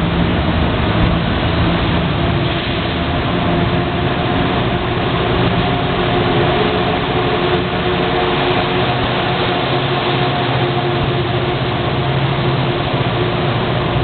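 NJ Transit PL42AC diesel locomotive working as it shoves a departing train of multilevel coaches out of the station, over the rumble of the passing cars. The engine gives a steady drone with several held tones and a strange, kinda funny note to it.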